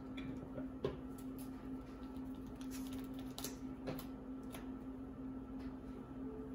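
Faint, scattered taps and clicks of sleeved trading cards being handled: set down, slid and picked up on play mats. A steady low hum runs underneath.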